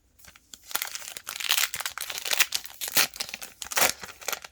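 Crinkling and tearing of a trading-card pack's plastic wrapper as it is ripped open, starting about a second in as an irregular crackle that carries on to the end.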